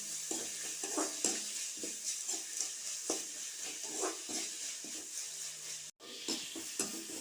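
Onions and tomato sizzling in hot sesame oil in a pan while a spatula stirs and scrapes them in quick, irregular strokes; the sound cuts out for an instant about six seconds in.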